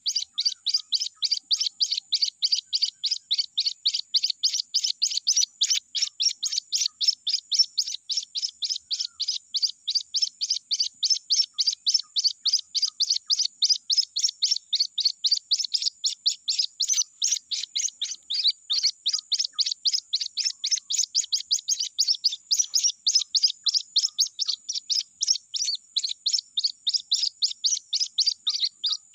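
White-breasted waterhen (ruak-ruak) chick peeping: short, high-pitched calls repeated about four times a second without a break, a chick calling for its mother.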